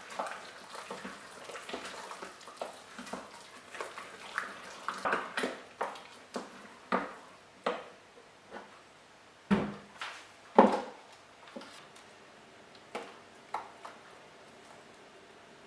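Kitchen utensils clinking and knocking against a mixing bowl in an irregular run of short hits, with the two loudest knocks about ten and eleven seconds in.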